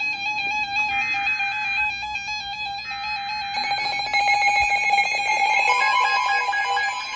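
Weather alert radios sounding their electronic alarms for a NOAA Weather Radio tornado warning: several stepped, warbling tones pile up, with a fast-pulsing tone joining about three and a half seconds in and beeping tones near the end. Under them in the first few seconds come the broadcast's screechy SAME digital header bursts, each about a second long.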